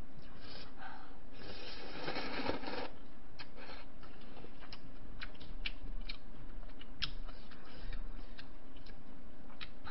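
Close-miked eating sounds: a slurp of jjamppong noodles about a second and a half in, then chewing with scattered small clicks of chopsticks and mouth sounds.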